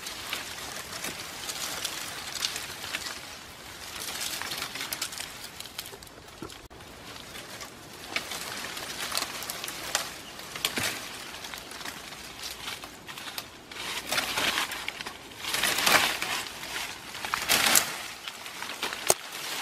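Dry leaves and twigs rustling and crackling as branches are pulled and undergrowth is pushed through. It comes in uneven surges that grow louder in the second half.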